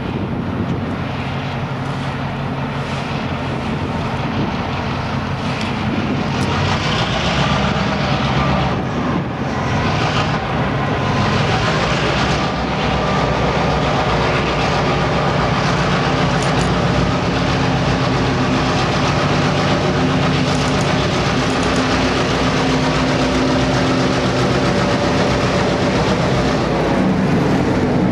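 Two diesel-electric freight locomotives, an F-unit in the lead and a road switcher behind it, approaching and passing with their engines running steadily. The sound grows gradually louder as they come close, and the freight cars roll along behind.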